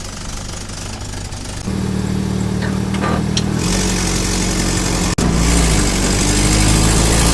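Willys CJ3A jeep's four-cylinder flathead engine running, stepping up in loudness a couple of times, with its note rising slightly near the end.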